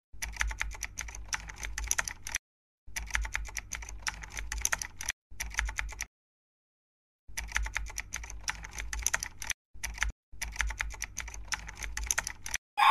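Computer keyboard typing sound effect: rapid key clicks in five bursts of about one to two and a half seconds each, broken by short dead-silent pauses.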